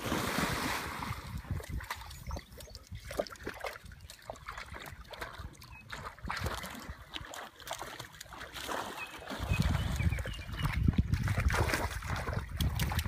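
Dogs splashing and wading into a pond, with a burst of splashing at the start as one plunges in, then scattered sloshing and dripping of water. From about two-thirds of the way through, a strong low rumble runs under the splashing.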